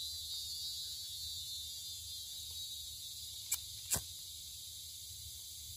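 Steady high drone of rainforest insects, with two sharp clicks about half a second apart a little past the middle.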